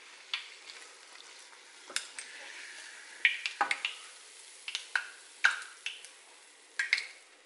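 Hot oil sizzling faintly in a small steel saucepan as egg-coated bread slices are lifted out, with a wooden spoon and a silicone spatula scraping and clicking against the pan about ten times.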